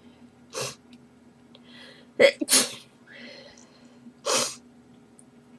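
A girl's rapid sneezing fit: four sharp sneezes, two of them close together in the middle, with quick breaths drawn in between.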